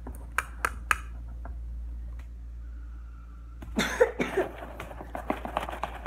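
Three sharp taps of a spoon against a paper cup, emptying it into a plastic tub of slime mixture, about a second in. A person's voice, with coughing, fills the second half and is the loudest sound.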